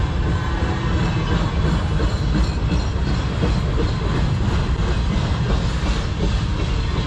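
Freight train of autorack cars rolling past close by: a steady rumble of steel wheels on the rails, with clacks from the wheels passing over the rail joints.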